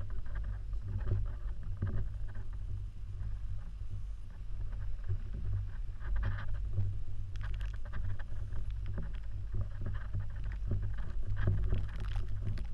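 Steady low rumble of wind and handling noise on a handheld camera's microphone, with scattered knocks and clicks as the camera is carried around.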